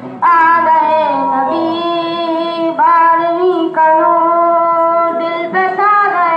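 A high voice singing a devotional naat in long held, slightly wavering notes, phrase after phrase.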